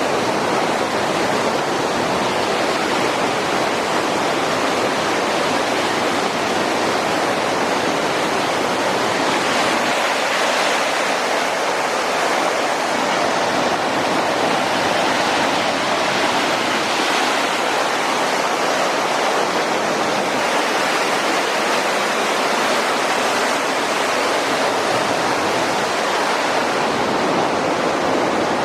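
Water of a rain-swollen waterfall pouring in a loud, steady rush.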